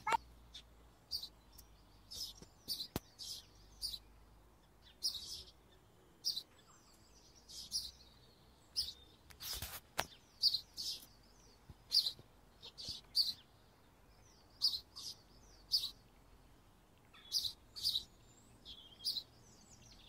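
Small birds chirping: short, high calls every second or so, with a brief knock about halfway through.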